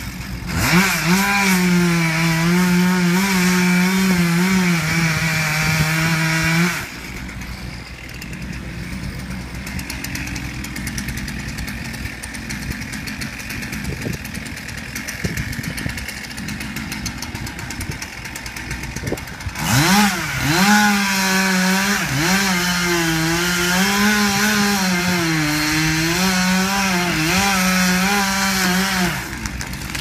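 Gas chainsaw held at high revs with its pitch wavering up and down for about seven seconds, then dropping to a much quieter idle. About twenty seconds in it revs up again for about ten seconds, with the pitch swinging the same way, before easing off near the end.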